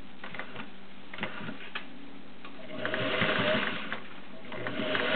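Vintage Singer 403A Slant-O-Matic, an all-metal, gear-driven machine, sewing a decorative cam stitch in two short runs of motor whir, one about halfway through and one near the end, with light clicks in between. The stitch length is set too short, and the bobbin thread is balling up under the fabric.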